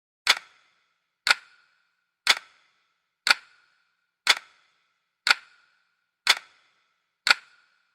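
Sharp click sound effect repeated eight times at an even one-a-second pace, each click with a short ringing tail.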